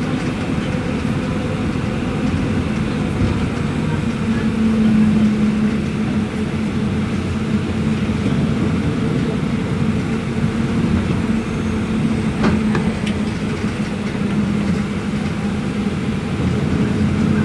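Mercedes-Benz OF-1721 Euro V bus diesel engine running steadily, a low even drone, with a couple of faint clicks about two-thirds of the way through.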